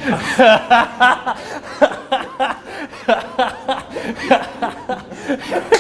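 People laughing: a run of short chuckles in quick succession.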